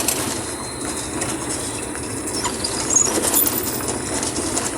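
Wind and road noise from a motorcycle riding a rough, wet dirt road, with rattling knocks throughout and a brief high squeal about three seconds in.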